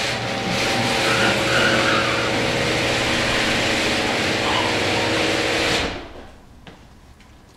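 Automatic garage door opener running as the door travels: a steady mechanical noise with a low hum that stops abruptly about six seconds in, as the door reaches the end of its travel.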